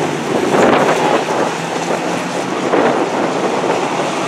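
A pack of dirt-track racing trucks running around the oval, their engines blending into one loud steady drone that swells and fades as trucks pass by.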